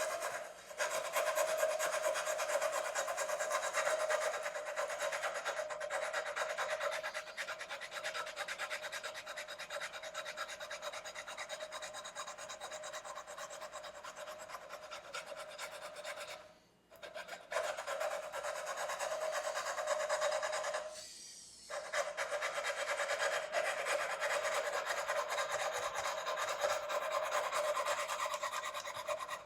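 Fret-levelling bar with abrasive paper rubbed back and forth over a guitar's frets, a continuous rasping scrape. It stops briefly about sixteen seconds in and dips again around twenty-one seconds before resuming.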